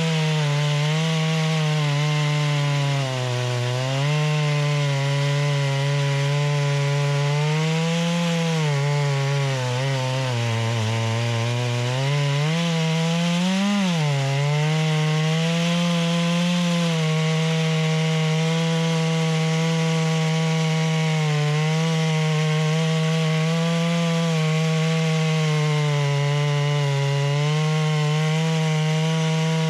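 Holzfforma G660 two-stroke chainsaw held at high revs, ripping lengthwise through a pine log in a chainsaw mill. Its engine note sags under load about ten seconds in, rises sharply back up, then holds steady through the rest of the cut.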